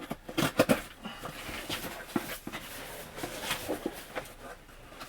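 Cardboard and plastic packaging being handled, with rustling and several light, irregular knocks and clicks as boxed vinyl figures are turned over and set down.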